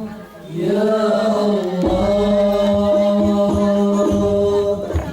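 Voices chanting a sholawat in long held notes. Banjari rebana frame drums come in with scattered strokes about two seconds in.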